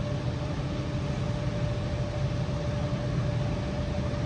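Steady low rumble of distant rail and road traffic, including an approaching diesel-led passenger train, with a faint steady whine over it.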